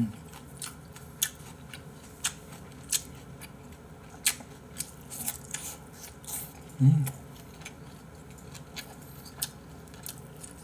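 Close-miked eating sounds: wet chewing and lip-smacking clicks, many short sharp ticks, while eating soft braised mackerel and rice. A brief low hum of the eater about seven seconds in.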